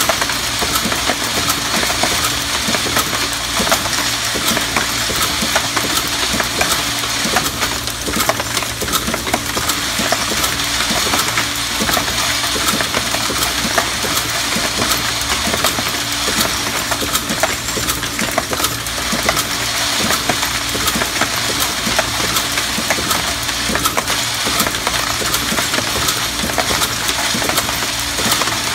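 Camdex automatic ammunition loading machines running: a steady motor hum under constant rapid metallic clinking of brass cases and cartridges.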